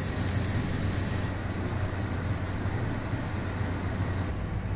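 Carrots and beans cooking in a lidded pan on a gas burner: a steady low hum with a hiss, the higher part of the hiss thinning about a second in.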